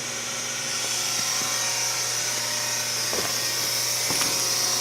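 Small electric motor and reduction gearbox of a furnace carriage drive running steadily with a high whine and a low hum, slightly louder about a second in. A few faint knocks come near the end.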